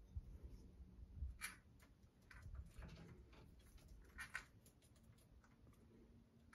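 Faint handling sounds of a liner-lock folding knife turned in the fingers and opened: a few light, scattered clicks and rubs.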